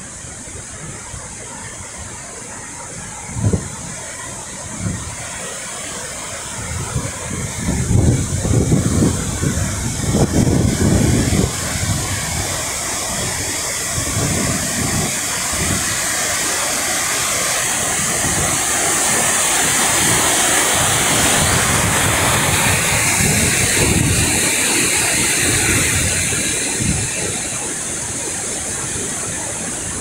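Langfoss waterfall's rushing water, a steady roar that swells to its loudest a little past the middle and eases near the end. Irregular low rumbles of wind on the microphone come and go in the first half.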